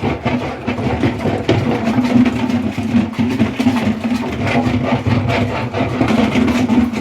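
A homemade washing machine running with a steady motor hum while it churns water and clothes, with irregular sloshing and splashing throughout.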